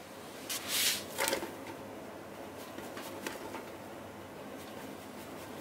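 Wholemeal spelt flour scooped and poured into a stainless steel bowl on a kitchen scale: a short rustling hiss about half a second in and a brief second one just after, then only faint soft pouring and small ticks.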